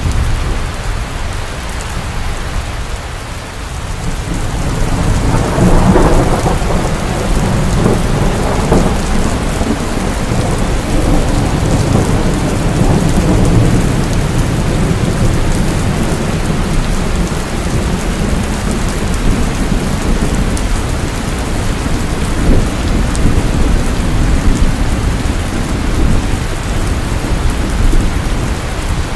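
Steady rain falling, with a deep rumble of thunder. It dips briefly, then swells to a peak about six seconds in and rolls on low under the rain.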